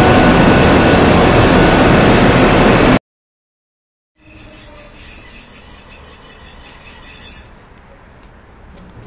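Overhead travelling crane carrying a completed steel bridge girder: a loud, steady mechanical din that cuts off abruptly about three seconds in. After a second of silence, the outdoor gantry crane runs with a steady high whine that drops away near the end, leaving a low hum.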